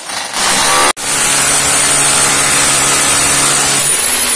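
Angle grinder cutting into a concrete floor, running loud under load with a steady high whine. It cuts out abruptly about a second in and starts again, and near the end the whine rises in pitch.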